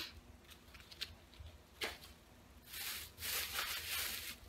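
Rustling and handling noises as haul items are put down and picked up: a sharp click about two seconds in, then a longer rustle.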